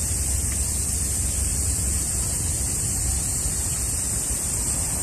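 Steady outdoor noise with no distinct events: an even high hiss over a low rumble, like wind on a phone microphone.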